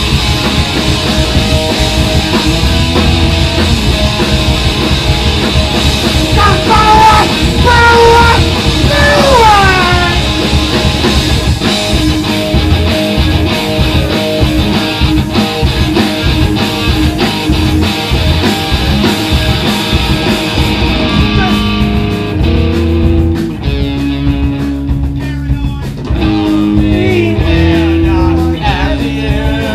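Live punk rock band playing loud, with electric guitars, bass and drums, and a few sliding notes that fall in pitch around a third of the way in. About two-thirds through, the full crash of the band thins out to a sparser passage of separate guitar and bass notes.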